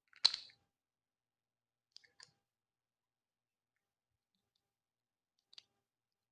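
Small plastic model-kit parts clicking as they are handled and fitted: one sharp click right at the start, a couple of faint clicks about two seconds in, and another near the end, with quiet between.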